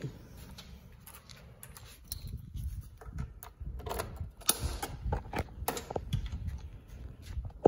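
Seat lock and latch of a Suzuki Satria FU 150 being worked by hand: a string of sharp clicks and knocks, busiest about four to six seconds in, as the latch releases and the seat is lifted.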